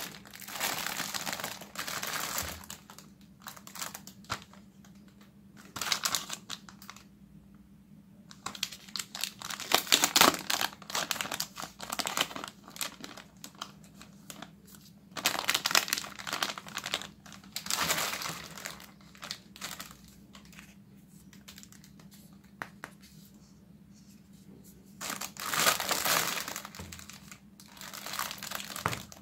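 Clear plastic wrapping crinkling in irregular bursts as hands grip and pull at it to unwrap a toy foam-dart blaster.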